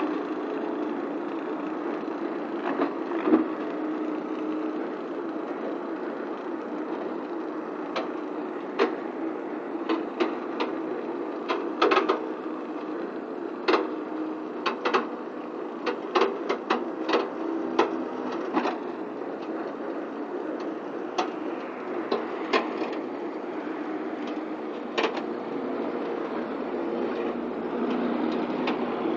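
Marolin 500 flail mulcher on an articulated hydraulic arm, running steadily as it cuts roadside grass, together with the drone of the truck carrying it. Sharp clicks and knocks come in clusters through the middle stretch.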